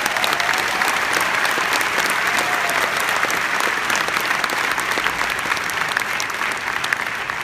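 Large crowd applauding steadily, a dense wash of clapping from thousands of hands that starts to thin out near the end.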